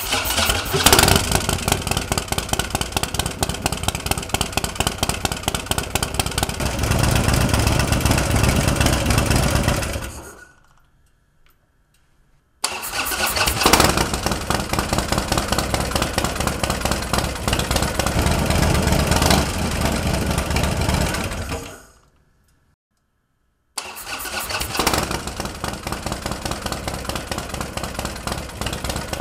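Harley-Davidson Dyna's air-cooled Twin Cam V-twin, freshly built out to 110 cubic inches with an S&S big-bore kit and 585 cams, idling with a steady pulsing beat during its break-in heat cycles. It starts abruptly three times: the first run lasts about ten seconds, swells a little near its end, then dies away; the second lasts about nine seconds; the third starts near the end.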